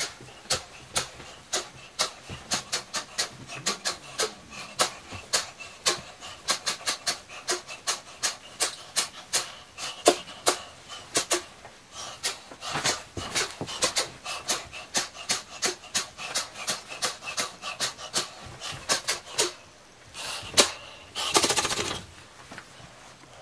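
Heavy panting breaths amid a fast, irregular run of sharp clicks, several a second, with a louder rush of noise near the end.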